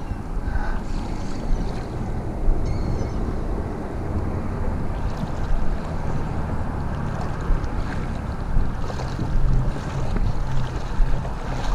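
Wind buffeting the microphone: a steady low rumble with brief louder gusts.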